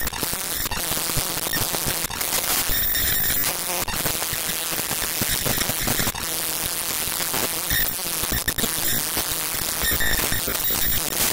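Loud, heavily distorted noisy soundtrack: a dense, harsh wash of sound across all pitches, peppered with sharp clicks.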